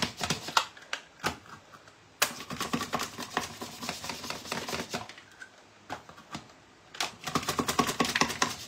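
Radishes being sliced on a handheld plastic mandoline slicer: runs of quick rasping strokes as the radish is pushed back and forth across the blade, in three bursts with short pauses between.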